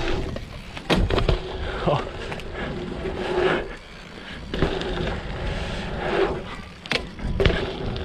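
Mountain bike rolling over a dirt trail, its knobby tyres humming in stretches, with several sharp clattering knocks of the bike over bumps, about a second in and twice near the end.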